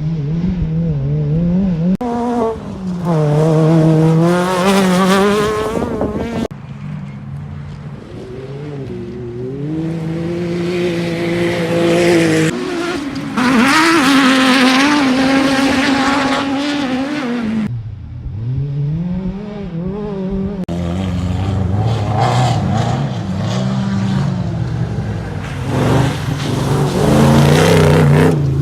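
Off-road race car engines revving hard, their pitch rising and falling through gear changes and corners. The sound is a run of separate clips that cut off abruptly one into the next.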